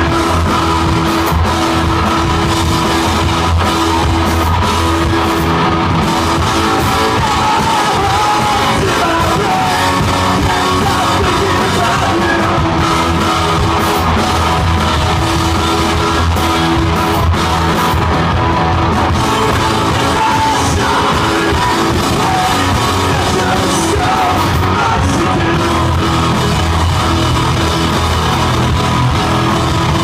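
Indie rock band playing live at full volume: two electric guitars, bass guitar and drum kit, with a man singing in places.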